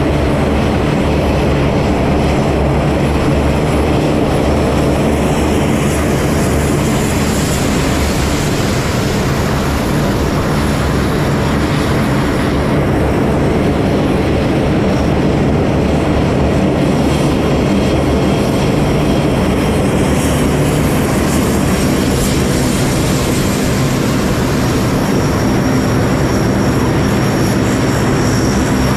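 C-130 Hercules four-engine turboprops running as the aircraft taxi in line, a loud, steady propeller drone that does not let up.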